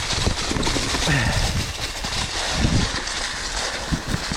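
Mountain bike ridden over a bumpy, horse-rutted dirt trail covered in leaves: tyres rolling through the leaves, with a run of short knocks and rattles from the bike over the bumps, and steady rushing noise.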